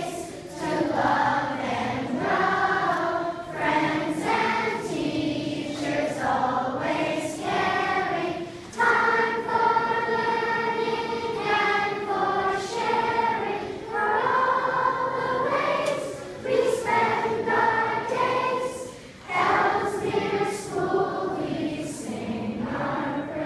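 A large group of schoolchildren singing together, with adult voices among them, in phrases of long held notes.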